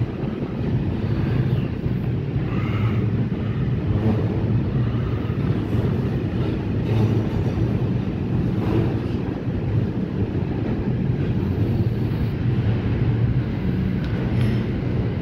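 Train rolling past, a steady low rumble.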